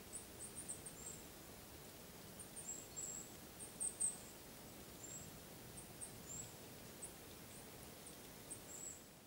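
Faint forest ambience with a small bird's very thin, high-pitched calls: short chirps and brief downward-sliding notes, irregular and several in some seconds, loudest about four seconds in.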